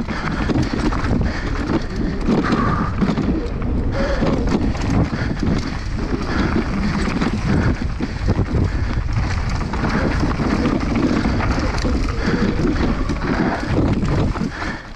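Mountain bike descending a downhill course at speed: wind buffets the microphone over the rumble of tyres on dirt, with a constant rattle and clatter of the bike over bumps.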